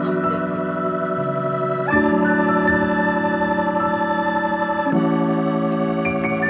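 Background music of sustained organ chords, the chord changing twice, about every three seconds.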